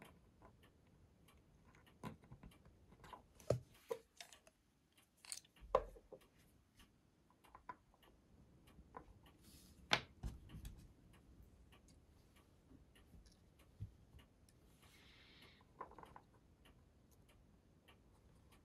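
Faint, irregular clicks and light taps of small model parts being handled as a thin metal deck grating is glued and pressed into place on a plastic model ship; the sharpest click comes about ten seconds in.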